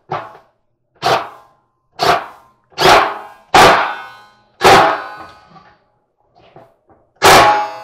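Power screwdriver run in short trigger bursts, about one a second with a pause near the end, driving a screw into the dryer's drum bearing mount until it has run all the way in.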